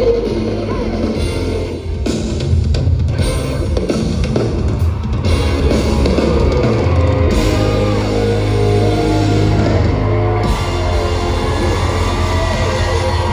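Loud rock music with heavy drums, guitar, a strong bass line and a singing voice.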